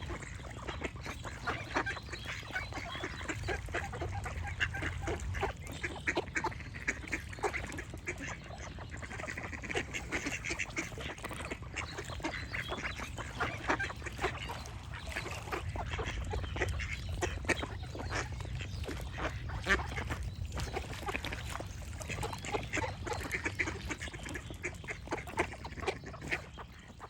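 A flock of ducks quacking continuously, many short calls overlapping, over a low rumble; it fades out at the very end.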